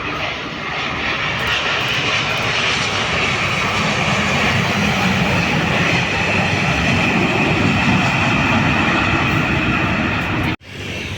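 Jet airliner's engines running loudly as it passes close by, a steady roar with a high whine, the low rumble swelling through the middle. The sound cuts off suddenly near the end.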